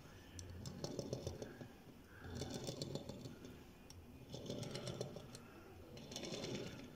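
Rubber-tyred die-cast model car rolled back and forth across a tabletop by a finger: a faint rolling rumble with light ticking, in four pushes about every one and a half to two seconds.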